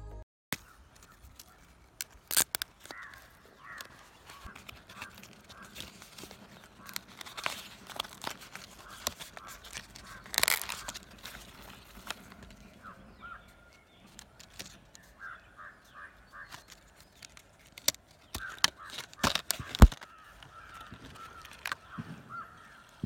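Clear plastic blister packaging crackling and clicking as hands peel it open and take out a microSD card and its adapter, with the loudest crackles near the start, in the middle and near the end. Birds call in short repeated notes throughout.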